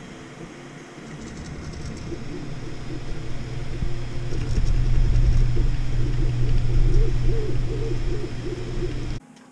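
Elegoo Neptune FDM 3D printer running at the start of a print: stepper motors whir with shifting pitches over a low rumble. The sound grows louder over the first few seconds and cuts off suddenly near the end.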